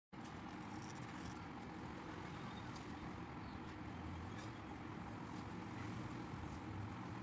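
Steady low background rumble and hiss, with a few faint ticks.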